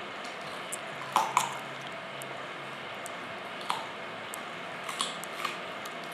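A dog crunching on a raw carrot: five sharp bites, the two loudest close together about a second in, then single crunches near four and five seconds.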